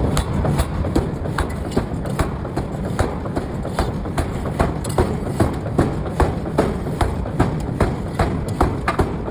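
Air forging hammer striking in a steady rhythm, about two or three blows a second, over a continuous low machine rumble.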